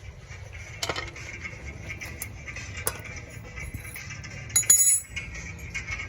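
Metal hand tools clinking and clattering: sharp separate knocks about once a second, with a louder ringing metallic clatter a little before the end.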